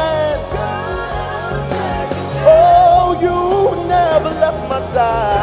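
Male gospel singer singing wordless ad-libs into a handheld microphone, with long held notes that bend in pitch, over live backing music.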